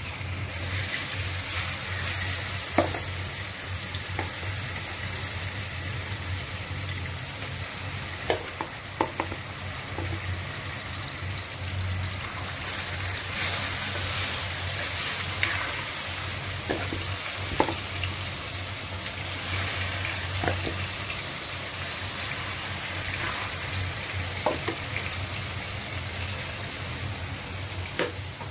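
Marinated chicken pieces sizzling as they hit hot oil in a kadhai, a steady frying hiss with a few sharp clicks of the spatula against the pan as the pieces are pushed in.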